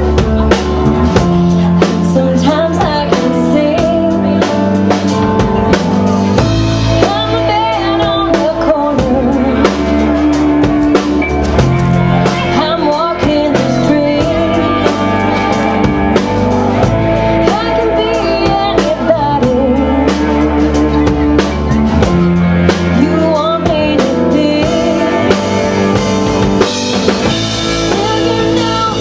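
Live rock band playing a song: a singer's voice over electric guitar, bass and a steadily played drum kit.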